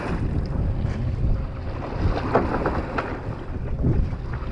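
Wind buffeting the microphone on a fishing boat at sea, a gusty low rumble with the wash of water around the boat beneath it.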